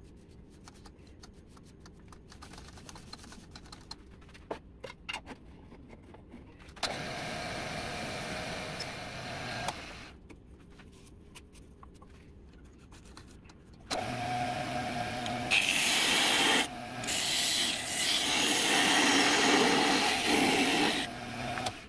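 Wood lathe spinning a small cherry workpiece. The first part holds only small handling clicks. From about two-thirds in, the lathe's motor hum carries a parting tool cutting into the spinning wood with a steady scraping hiss.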